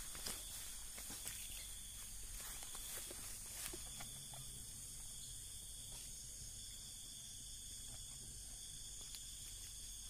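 Steady high-pitched chirring of night insects, with a few faint clicks and rustles during the first four seconds.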